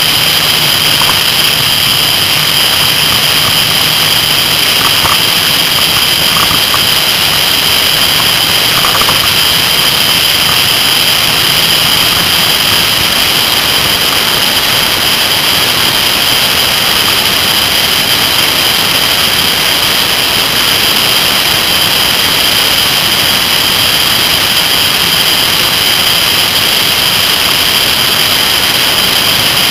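Kawasaki ZR-7S air-cooled inline-four engine running as the motorcycle rides at speed, under a loud steady rush of wind on the bike-mounted microphone, with a constant high whine. The low engine note is clearest in the first dozen seconds, then sinks into the wind noise.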